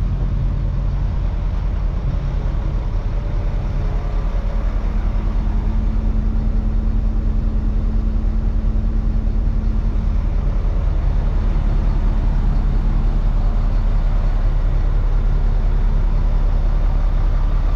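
Diesel-like heavy truck engine idling steadily, the rollback truck running so its hydraulic bed can be worked. A slightly higher steady hum joins in for several seconds in the middle.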